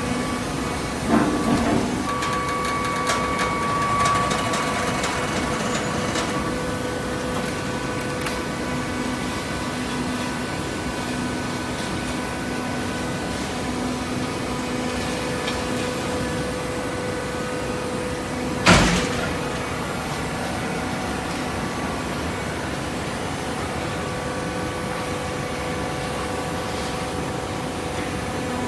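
Hydraulic paper baler running with a steady machine hum. A couple of knocks come about a second in, and one sharp, loud clunk about two-thirds of the way through.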